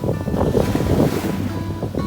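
Sea waves washing on a beach, with wind buffeting the microphone.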